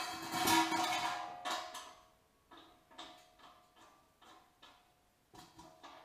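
Hands-on workshop noise while a feed line is fitted to the dyno pump: a loud scrape and clatter with a metallic ring in the first two seconds, then light clicks about three a second.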